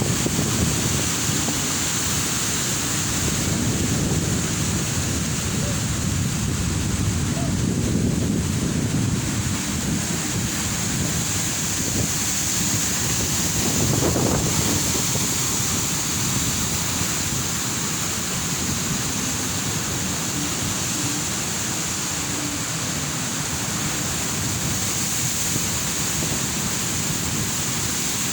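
Ocean surf washing in continuously in slow swells, with wind rumbling on the microphone.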